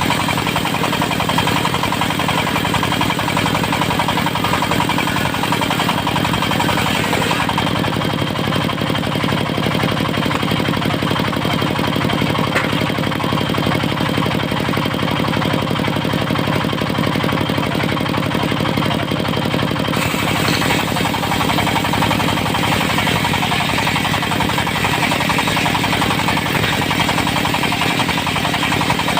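Diesel engine of a portable circular sawmill running steadily. The higher hiss over it dies down about seven seconds in and comes back about twenty seconds in.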